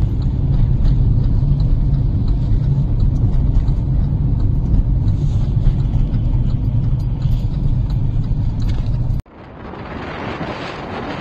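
Steady low rumble of a car driving, heard inside the cabin. About nine seconds in it cuts off suddenly and gives way to the hiss of strong wind blowing across the microphone, growing louder.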